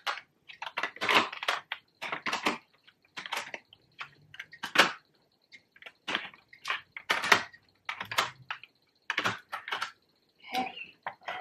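Plastic Game Boy cartridges clicking and clacking against each other and a clear plastic holder as they are handled and stacked, in an irregular run of sharp clicks.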